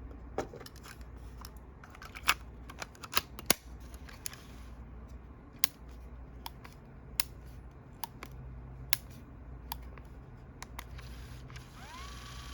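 Mechanical clicks and clacks from a Panasonic SX3 Walkman cassette player being handled, about a dozen sharp clicks spread unevenly. Near the end playback begins: a steady tone slides up in pitch as the tape comes up to speed, then holds steady.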